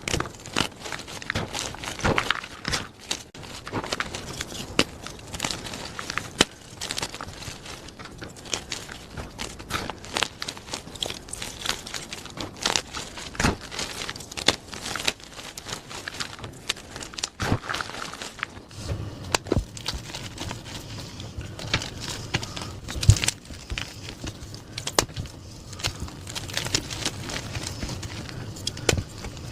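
Plain gym chalk being crushed: a dense run of crunchy crackles and snaps as the blocks break and crumble into powder. About two-thirds of the way through the sound shifts to a duller, deeper crunching.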